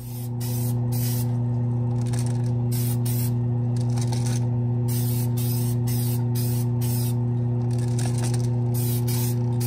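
Krylon Dull-Cote aerosol spray can hissing in a quick series of short bursts, laying a matte clear coat on an HO-scale model freight car. Under it runs a steady low hum from the spray booth.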